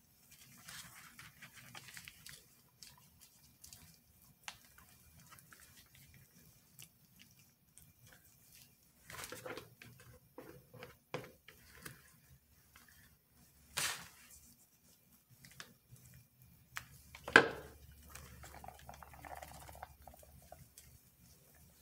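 Quiet handling of a piping bag with a plastic tip against a soap mold: scattered light taps and clicks, with a sharper knock about 14 seconds in and the loudest about 17 seconds in.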